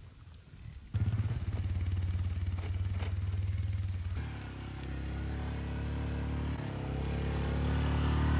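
An ATV (quad bike) engine running steadily. It starts suddenly about a second in, changes tone around the middle, then gradually grows louder toward the end.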